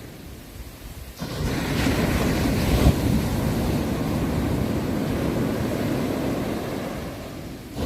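Ocean waves breaking on a shore: after a brief lull, a wave surges in about a second in, crashes and then washes out slowly, and the next wave begins near the end.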